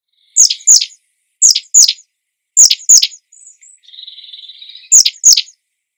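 Common chiffchaff singing: four pairs of sharp, high notes, each falling steeply in pitch, with a faint buzzy trill just before the last pair.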